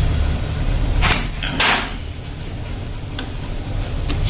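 Two short clatters of metal tools and engine parts being handled, the second a little longer, over a steady low workshop rumble.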